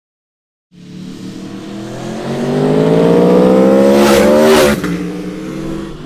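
Aprilia Tuono motorcycle engine accelerating hard, its pitch climbing steadily for a few seconds, then dropping abruptly about four and a half seconds in and running on lower before fading.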